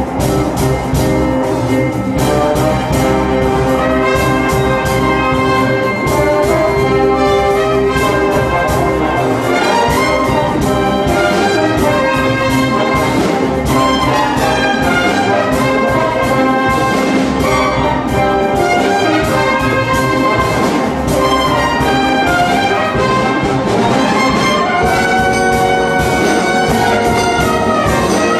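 Orchestral music led by brass, with a fast, steady beat.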